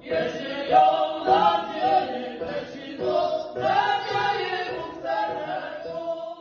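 Small mixed group of singers, men and women together, singing unaccompanied in sustained phrases, with short breaks between phrases about a second in and again past the middle.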